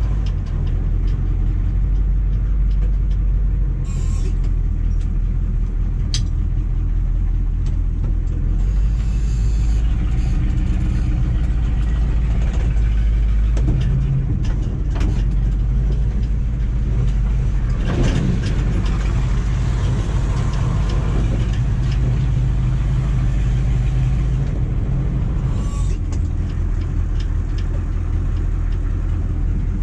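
A 6.2-litre Detroit V8 diesel engine in a 1985 GMC 3500 pickup running steadily as the truck is driven. Its low drone steps up and down in pitch several times, and a few short knocks come through.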